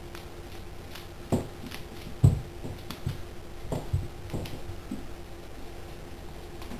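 A Boxer dog nosing and mouthing a raw fish: an irregular run of wet smacks and knocks, the loudest about two seconds in.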